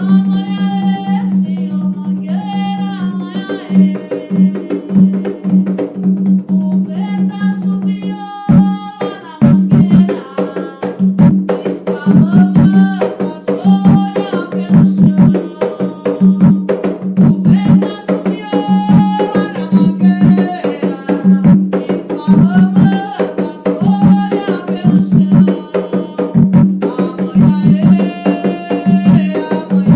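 Umbanda ponto (devotional chant) sung to a melody over hand drums beating a steady rhythm; the drums cut out briefly about eight seconds in, then come back stronger.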